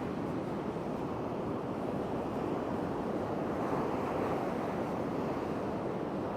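Ocean surf washing steadily onto the beach, with some wind on the microphone.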